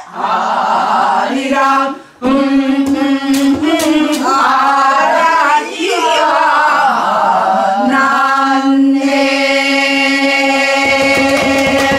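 A small group of men and women singing together in Korean traditional folk style, with long held notes and sliding, wavering pitch. The singing breaks briefly about two seconds in, and a long steady note is held over the last four seconds.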